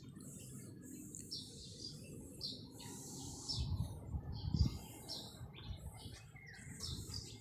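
Small birds chirping, short high calls repeating throughout, over a low background rumble that swells briefly about four seconds in.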